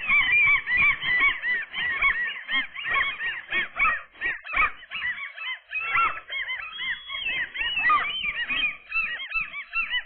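Adult common gulls calling in a rapid, continuous chorus of short rising-and-falling cries, several birds overlapping.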